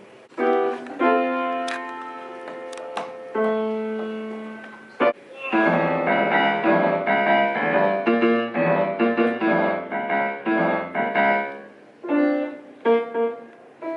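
Piano music: a few held chords, then a busier stretch of quick notes from about halfway through.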